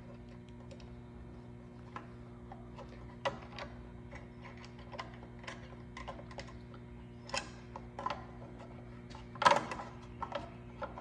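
Small metal clicks and taps of hinge-cover hardware being handled and its fasteners screwed in by hand, with one louder knock near the end, over a steady low hum.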